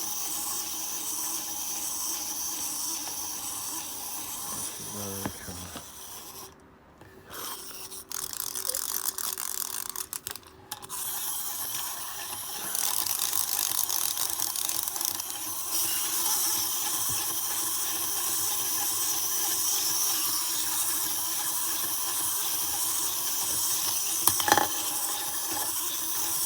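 Clockwork mechanisms of small plastic wind-up walking toys whirring and clicking steadily. The sound drops away briefly a few times between about six and eleven seconds in, and a single sharp click comes near the end.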